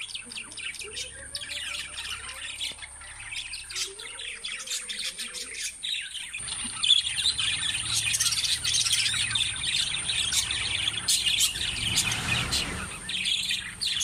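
A flock of budgerigars chirping and chattering, a dense continuous twitter of many birds at once that grows louder about halfway through.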